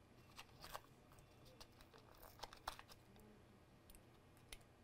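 Near silence broken by a few faint clicks and light crinkles of handling, as a small flash drive is lifted out of its box.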